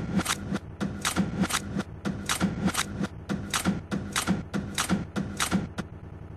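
A rapid, uneven run of sharp clacks, about three or four a second, stopping shortly before the end.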